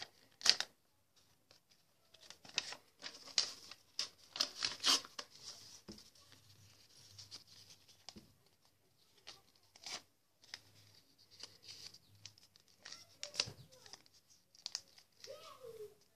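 Paper being torn by hand into small pieces: a series of short, irregular rips with pauses between them.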